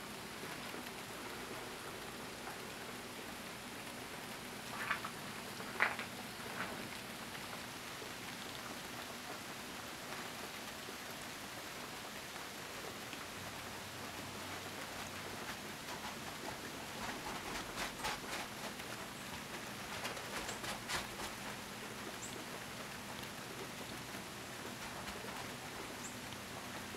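Freezing rain falling steadily on ice-coated trees and a deck, an even hiss. A few sharp ticks stand out about five and six seconds in, and a cluster of clicks comes about two-thirds of the way through.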